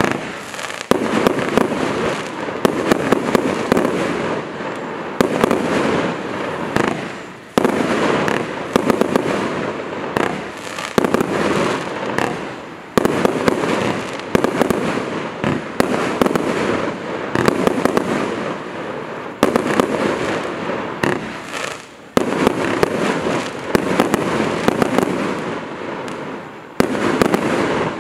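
Celtic Fireworks 'Chop On' firework cake firing, a rapid run of shots and crackling bursts. It comes in repeated waves, each starting suddenly and fading over two to three seconds.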